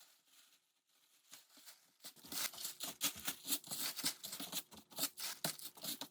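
Handling noise: after about two seconds of near silence, a fast, irregular run of small clicks, taps and rustles.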